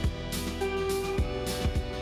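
Background music: a guitar track with a drum beat.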